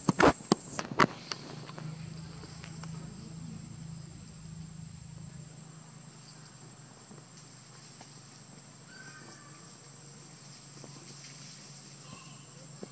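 Outdoor ambience with a steady high-pitched insect drone over a low hum. A few sharp clicks and knocks come in the first second or so, and faint short chirps come about nine seconds in.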